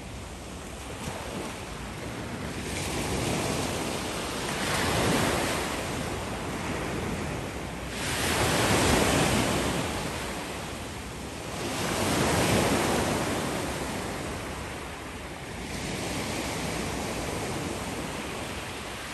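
Sea surf washing in, swelling and fading in four surges about every three to four seconds.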